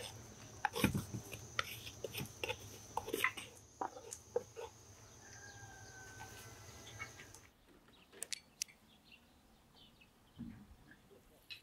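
A metal spoon scraping and tapping against a wooden mortar as it scoops crumbly ground walnut filling into an enamel bowl: a quick run of small scrapes and clicks. After about seven and a half seconds it gives way to quiet, with only a few soft clicks.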